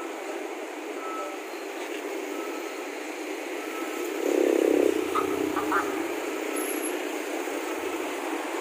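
Road traffic with motorcycles and cars passing, one vehicle going by louder about four seconds in, and a faint beep repeating about once a second.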